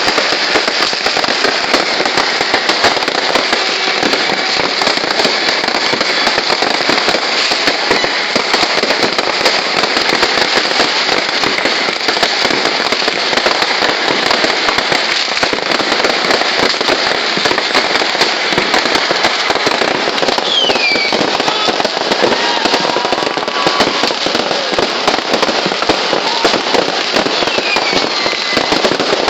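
Fireworks crackling and popping in a dense, continuous barrage of rapid small bangs. Two short falling whistles cut through it, one about two-thirds of the way in and one near the end.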